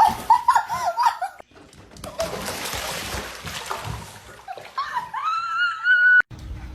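Water splashing for a few seconds, between a short wavering high call at the start and a longer call near the end that rises and then holds.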